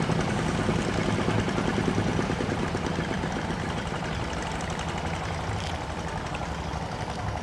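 A small engine running steadily with a fast, even beat, growing slightly fainter.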